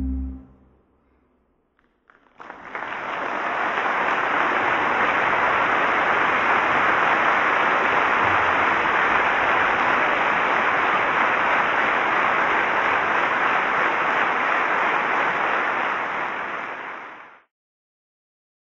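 Steady rushing noise that swells in about two seconds in, holds even, and fades out shortly before the end.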